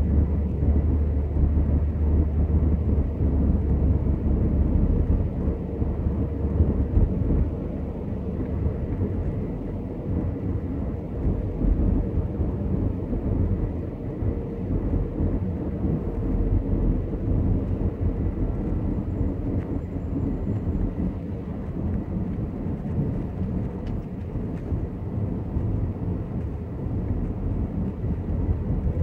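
Car cabin noise while driving: a steady low rumble of engine and tyres on the road, heavier for the first five seconds or so, then a little lighter.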